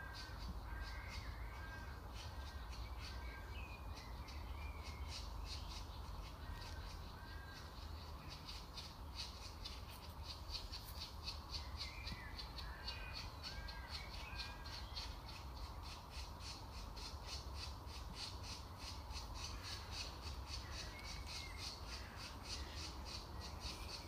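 Green woodpecker nestlings begging at the nest hole: short squawky calls in runs of several, over a continuous fast train of high rasping notes.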